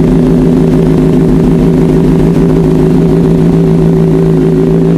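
Kawasaki ZX-6R's inline-four idling steadily after a cold start, loud through a freshly fitted SC-Project GP70R slip-on exhaust.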